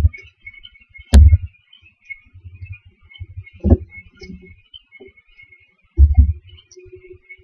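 Dull knocks and bumps of barn owlets shifting in a wooden nest box, picked up by the nest-box camera's microphone. There are four or five separate knocks, one sharp one about a second in and a quick pair near the end, over a faint steady crackle.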